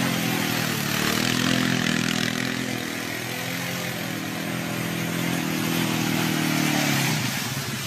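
ATV engine running at a steady mid speed as the quad circles, under a broad steady hiss. The engine note drops away about seven seconds in.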